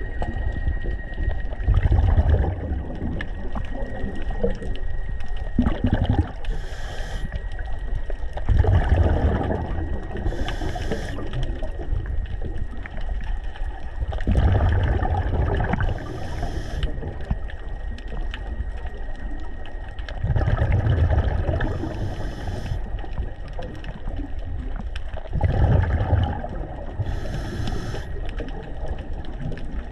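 Sea water heard from underwater: a steady wash of water noise, with a low rushing swell about every six seconds and short high hisses in between.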